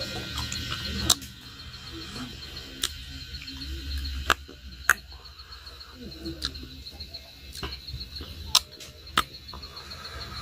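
Steady, rapidly pulsing high chirp of a night-time animal chorus, with several sharp clicks scattered through it.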